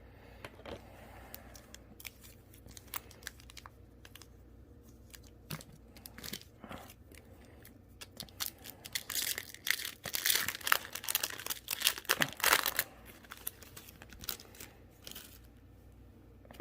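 Foil Yu-Gi-Oh! booster pack wrappers being handled and torn open: scattered crinkles and rustles, with the loudest run of crinkling and tearing from about nine to thirteen seconds in.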